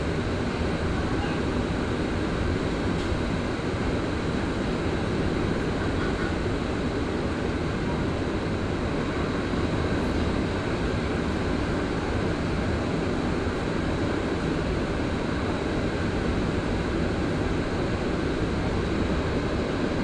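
Montreal Metro MR-73 rubber-tyred train running at steady speed through a tunnel, heard from inside the car: a dense, even rumble of tyres and running gear with a faint steady high whine above it.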